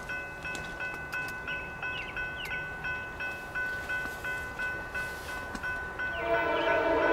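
Railroad grade-crossing warning bell ringing steadily at about three strikes a second. About six seconds in, a locomotive horn starts to sound over it.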